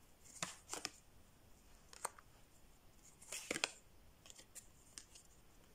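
Tarot cards being handled on a table: a few short, faint swishes and taps as cards are slid and laid down, the longest swish about three and a half seconds in.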